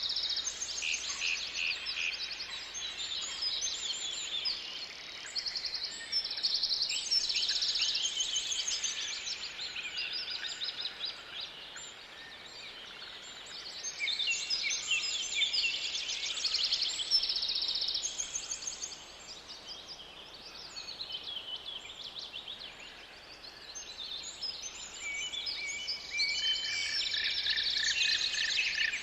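Forest birds singing together: a dense chorus of overlapping chirps and rapid trills. It thins out in the middle and fills again near the end.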